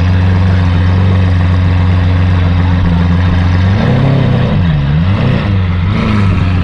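Lamborghini Aventador LP700-4's 6.5-litre V12 idling steadily, then revved in three quick throttle blips, each rising and falling in pitch, before dropping back to idle.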